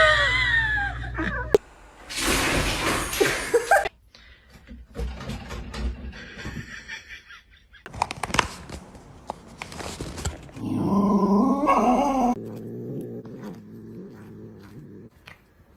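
A pet dog vocalizing in a run of short clips with abrupt cuts between them, some with bursts of noise and clicks.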